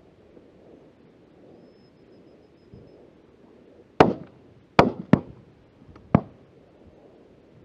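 Four shotgun shots in about two seconds, the first two the loudest and sharpest.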